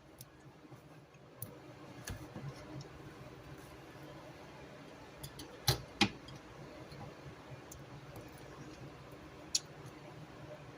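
A few light clicks and taps in a quiet room, with two sharper clicks close together about six seconds in and another near the end.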